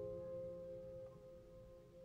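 Background music: a held electric-piano chord fading away.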